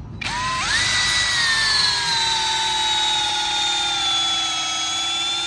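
AKUZA K2 battery drill/driver driving a long wood screw. The motor spins up with a quickly rising whine just after the start, then runs steadily, its pitch sagging slowly as the screw goes deeper into the wood and loads the motor.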